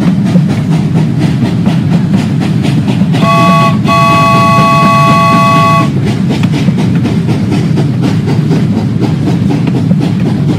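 Battery-powered toy steam locomotive running on plastic track with a steady rattling whir of motor and wheels. About three seconds in its built-in sound plays a steam-whistle toot: a short blast, a brief break, then a longer blast of about two seconds.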